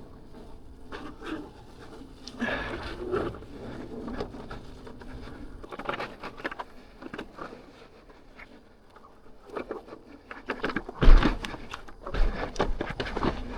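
Off-road electric unicycles riding over a rough dirt trail: a faint buzzing whine under uneven rattles and knocks from the ground, with a heavy thump about eleven seconds in.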